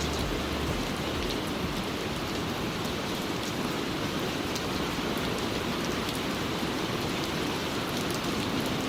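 Steady rain: an even hiss of falling rain with scattered drop ticks.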